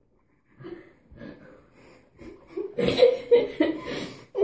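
Girls laughing: faint snickers at first, then laughter breaking out about three seconds in as quick, breathy, repeated bursts.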